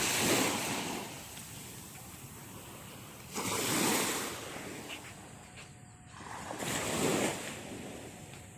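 Waves washing onto a beach, each one swelling and falling away: one at the start, another about three and a half seconds in, and a third about seven seconds in.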